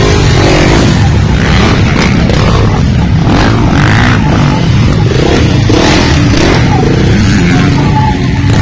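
Motocross dirt bike engines revving as the bikes ride past, their pitch rising and falling.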